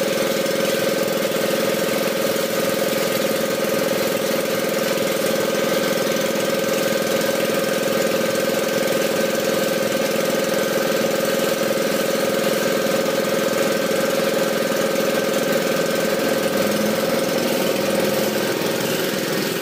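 Small engine of a borewell drilling setup running steadily at constant speed.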